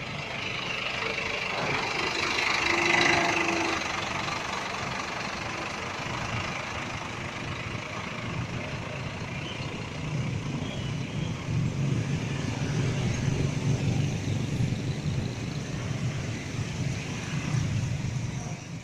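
Scania bus's diesel engine running, with a hissing rise about three seconds in and the low engine rumble growing louder over the second half.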